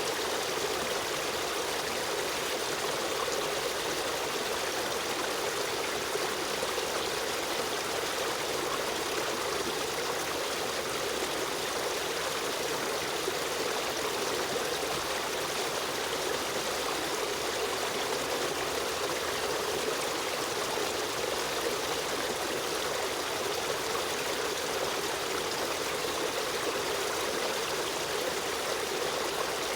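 Stream water running and trickling steadily.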